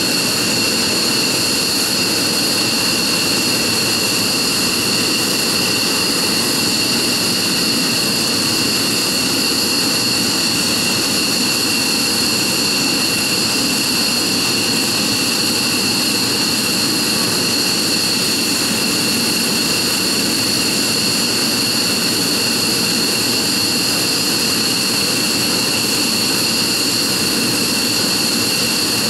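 F-15J Eagle's twin Pratt & Whitney F100 turbofans idling on the ground: a loud, steady jet rush with two high, unchanging whines.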